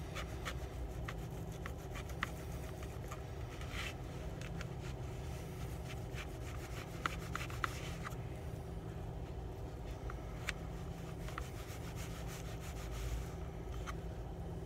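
Eating sounds: scattered light clicks and short scrapes of cutlery against a takeout container, with chewing, over a steady low hum inside the car cabin.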